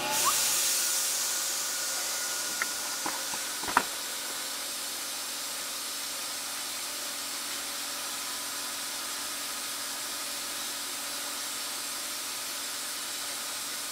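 Steady hiss of background noise, with a brief brushing rustle at the start and a few light clicks about three to four seconds in as the small model steam engine crosshead assembly is handled.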